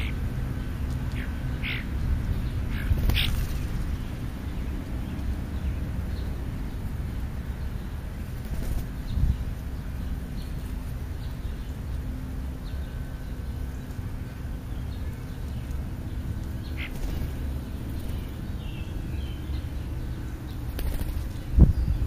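European starling in the grass, with a few short sharp sounds, then a brief loud flutter of wings just before the end as it flies off. A steady low rumble runs underneath.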